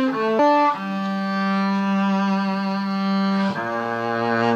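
Double bass played with a bow: a few short notes, then one long held note, changing to another note about three and a half seconds in.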